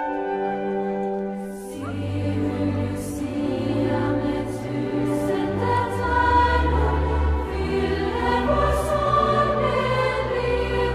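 Background music: held instrumental notes, then from about two seconds in a choir singing over a fuller instrumental accompaniment with a deep bass.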